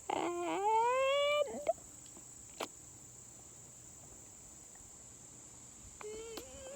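A voice humming a rising note for about a second and a half, like a drum-roll build-up, then a quiet stretch broken by a single click, and another short rising vocal sound near the end.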